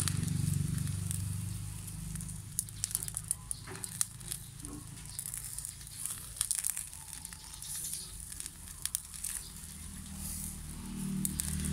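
Charcoal fire crackling under bigeye scad (matang baka) grilling on a metal grate, with scattered sharp pops and clicks over a steady high hiss. The fish are being turned with tongs. A low rumble is strongest at the start and near the end.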